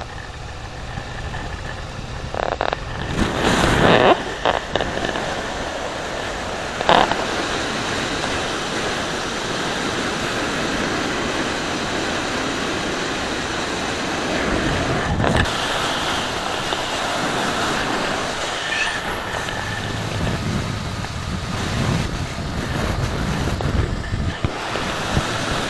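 Motorcycle ridden at road speed: a steady rush of wind over the bike-mounted camera with the engine running under it, and a few louder gusts of wind buffeting a few seconds in.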